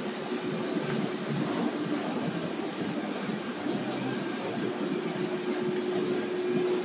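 Four-spindle ATC CNC router running, its gantry travelling over the board as one spindle works: a steady machine hum with a held tone through it.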